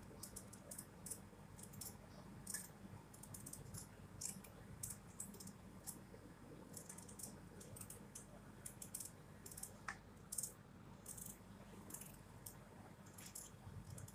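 Small kitchen knife peeling a raw potato: faint, quick scraping clicks as the blade shaves off the skin, several a second and unevenly spaced.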